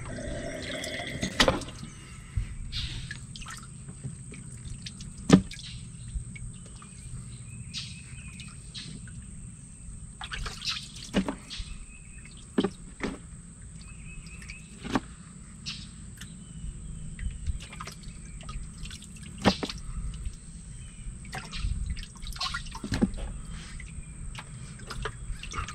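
Water sloshing and dripping in a boat's livewell as a hand reaches in and lifts out crappie, with scattered splashes and light knocks.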